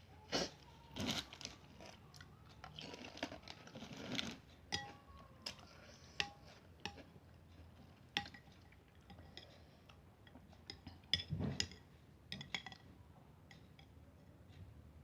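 Close-up eating of seblak: a spoon clinking and scraping against a bowl, mixed with chewing, in scattered short clicks and a few louder bursts near the start and around twelve seconds in.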